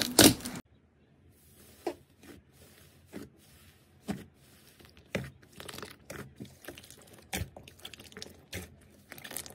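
Hands squeezing and kneading a large soft slime, giving scattered short crackles and pops. A dense, louder slime crackle from the previous clip cuts off abruptly under a second in.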